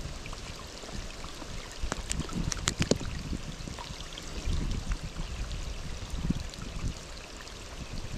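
Steady flowing and trickling of stream water, with a few sharp clicks about two to three seconds in.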